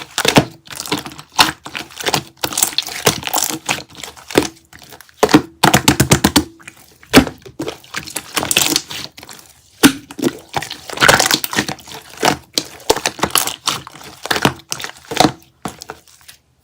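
Plastic and tape crinkling and cracking as it is handled, with many irregular sharp cracks and clicks and rapid crackly flurries; it stops suddenly near the end.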